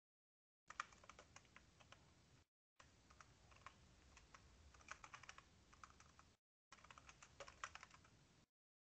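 Faint typing on a computer keyboard: quick, irregular key clicks in three runs, with short dead-silent gaps between them.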